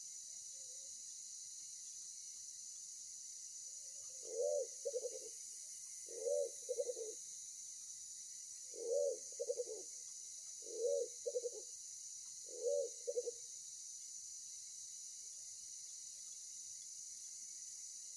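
A pigeon cooing five times, about two seconds apart: each phrase is one longer coo followed by two short ones.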